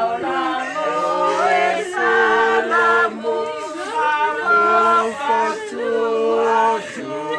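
A group of voices singing unaccompanied in parts, holding long notes that change in steps.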